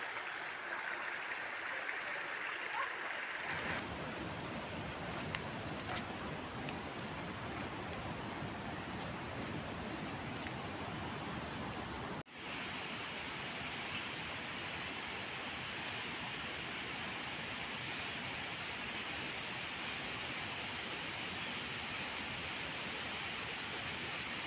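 Steady outdoor background noise, an even rushing hiss, with a brief dropout about twelve seconds in; after it a thin high tone pulses regularly.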